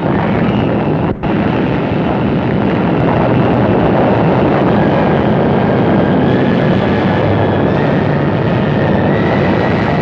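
Loud, continuous rumbling roar of an atomic bomb blast as laid on an old newsreel soundtrack. It starts abruptly, drops out briefly about a second in, and a faint whine rises slowly in pitch in the second half.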